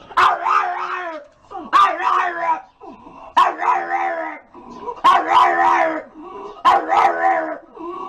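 A dog giving a series of drawn-out, wavering howl-like barks, about five calls in a row, each under a second long and coming roughly every one and a half seconds.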